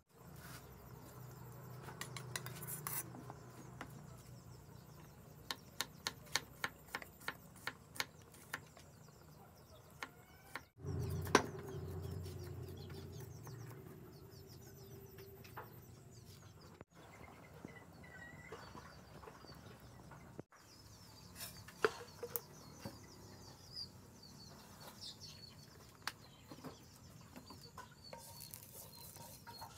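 Cleaver chopping on a thick wooden chopping block: a run of sharp knocks about two a second, then scattered knocks and clatter.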